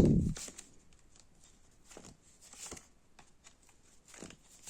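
Tarot cards being handled: a loud burst of shuffling that stops just after the start, then a few soft swishes and taps as cards are drawn and laid down.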